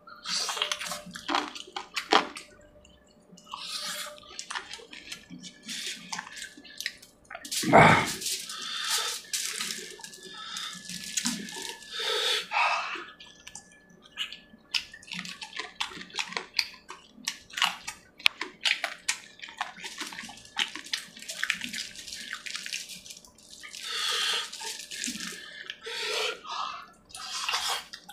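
Close-up eating sounds of a person chewing chicken curry and puri: a dense run of wet smacks, squelches and mouth clicks, with one louder, deeper wet sound about eight seconds in.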